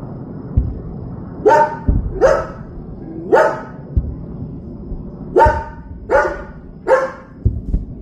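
A dog barking, six sharp barks in two groups of three, over a steady low rumble with a few dull low thumps.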